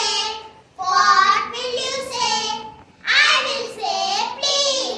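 A group of children singing together in chorus, in phrases of about two seconds with short breath pauses between them.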